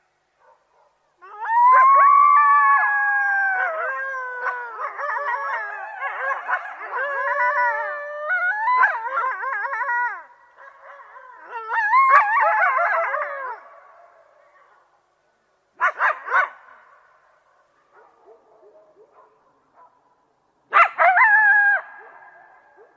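A group of coyotes howling and yipping together, several wavering, gliding voices overlapping. The chorus lasts about twelve seconds and trails off, and two short bursts of yips follow near the end.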